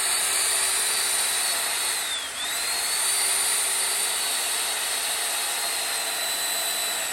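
Corded electric chainsaw running steadily as it cuts wood with a razor-sharp chain. Its motor whine dips in pitch once about two seconds in and then climbs back.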